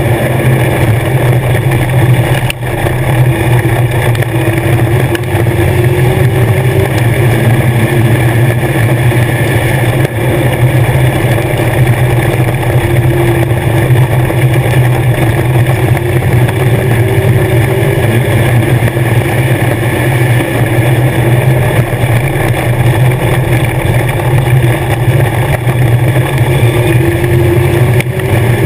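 Legends race car's Yamaha 1250 cc four-cylinder motorcycle engine running hard at racing speed, loud and steady inside the cockpit, with two brief dips, about two and a half seconds in and near ten seconds.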